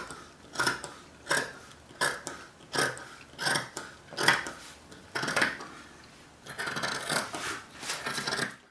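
Large fabric scissors cutting through two layers of linen-canvas fabric, a snip roughly every three-quarters of a second, coming closer together near the end, then stopping abruptly.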